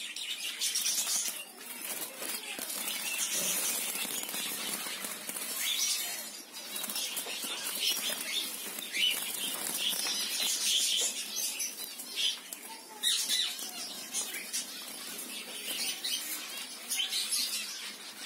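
Caged birds fluttering and flapping their wings in a bird room, an irregular rustling with short high chirps mixed in.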